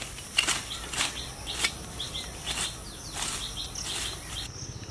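A blade hacking at the thick base of an elephant foot yam stalk: several sharp cuts about half a second apart, with birds chirping.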